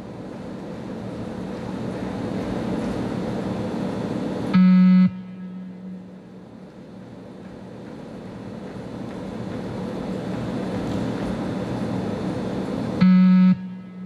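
Two low, buzzy electronic beeps from the 20 m shuttle run (beep test) recording, each about half a second long. The first comes about four and a half seconds in and the second about eight seconds later; each marks the end of a 20 m shuttle at stage one. Between them a noise swells steadily and drops away at each beep.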